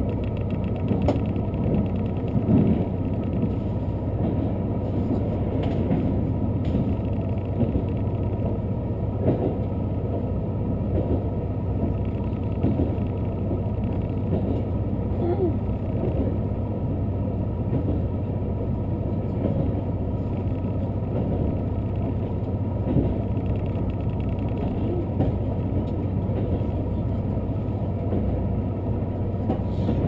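Steady running noise inside the cabin of a moving limited express diesel train: an even low rumble of wheels on rail and engine, with a few faint knocks.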